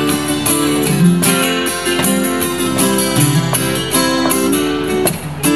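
Acoustic guitar played solo between sung verses, chords strummed and picked with moving bass notes, with a brief break about five seconds in.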